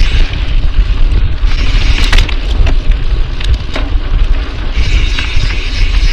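Mountain bike riding fast down a dirt trail: wind buffeting the camera microphone as a heavy rumble, with tyres rolling on dirt. Sharp knocks and rattles come from the bike over bumps in the middle.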